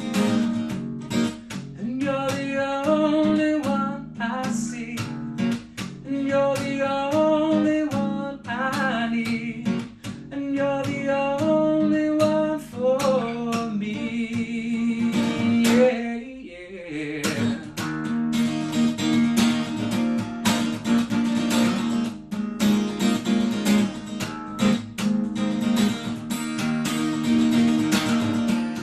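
Acoustic guitar strummed and picked, with a man singing over it for the first half. After a short lull just past the middle, the guitar carries on alone in a steady strumming groove.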